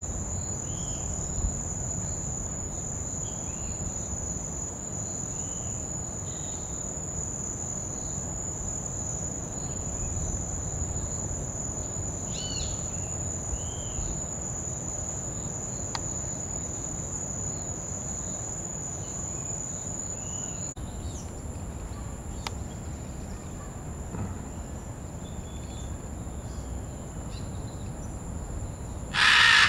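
Steady high-pitched insect drone with faint short bird chirps over it, and one short loud burst near the end.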